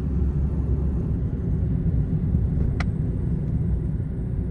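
A car driving along, giving a steady low rumble of road and wind noise, with one short click about three seconds in.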